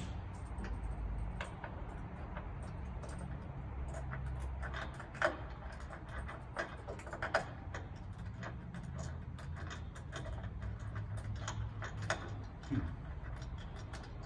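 Scattered light clicks and taps of small parts being handled as screws and the cheek block are fitted by hand at the keyboard end of a grand piano, the sharpest clicks about five, seven and twelve seconds in, over a low steady room hum.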